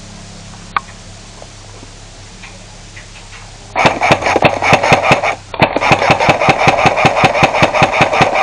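Airsoft gun firing on full auto, close by: a rapid string of sharp shots, about eight a second, starting about four seconds in, breaking off briefly and then resuming.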